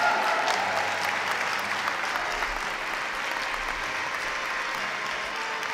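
Audience applauding steadily, loudest at the start and easing off a little.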